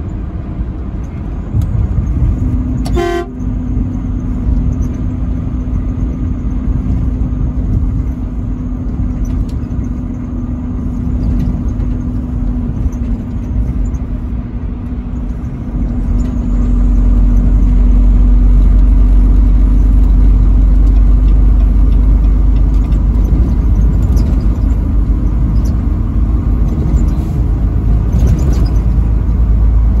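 Truck cab at highway speed: steady engine and road drone, with a low rumble that grows louder about halfway through. A short horn toot sounds about three seconds in.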